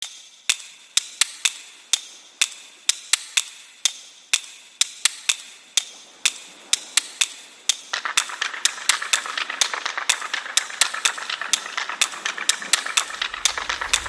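Repeated sharp knocks, two or three a second, from crabs being broken up for soup. Just over halfway through, a steady hiss comes in beneath the knocks.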